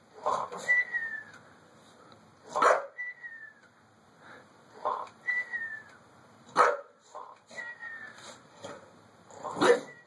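A toy parrot sounding off over and over: a short falling whistle about every two and a half seconds, with three loud harsh squawks in between.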